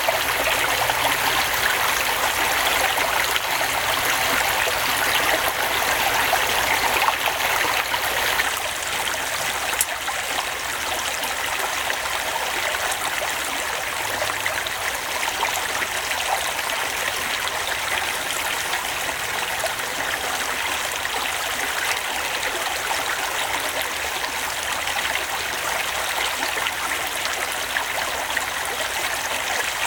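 Steady rushing hiss like running water, a little louder for the first eight seconds or so.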